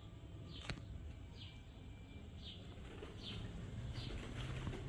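A small bird chirping over and over, one short falling chirp about every second, with a single sharp click about a second in, over a steady low outdoor rumble.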